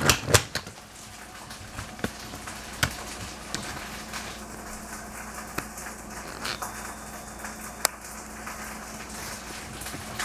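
Quiet room tone with a faint steady hum, broken by a few knocks at the start and then a handful of isolated sharp clicks spread a second or two apart.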